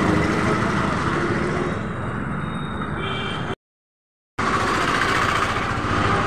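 Busy street traffic: a steady din of vehicle engines and road noise. The sound cuts to dead silence for just under a second about halfway through, then the same din resumes.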